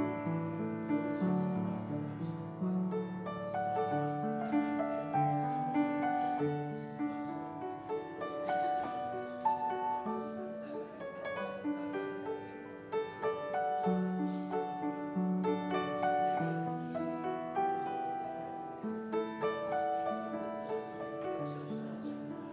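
Keyboard instrument playing a slow piece in held chords with a melody line above.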